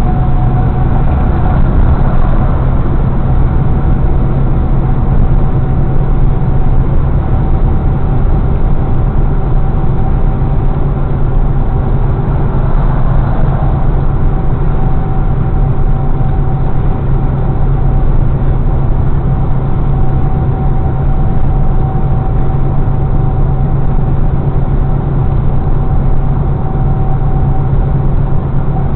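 Semi-truck's diesel engine and tyre noise heard from inside the cab at steady highway speed: a constant low drone with a thin steady whine above it.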